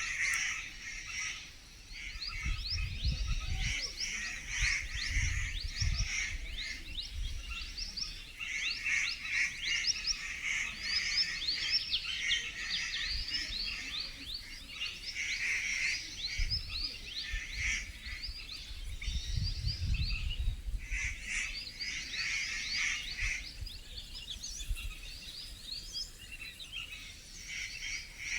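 Dense forest chorus of many birds chirping continuously, with rapid overlapping high calls. Low rumbles come and go twice, at about 2–7 s and again at about 16–21 s.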